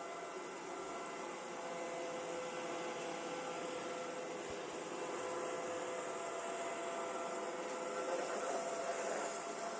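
Viomi vacuum cleaner running steadily: a hiss of moving air with a hum and several steady whining tones over it, the sound that the owner calls bad.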